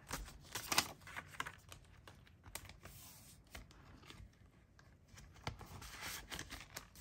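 Paper banknotes and a clear plastic zipper pouch rustling and crinkling as they are handled, with small clicks and taps; busiest in the first second, quieter through the middle.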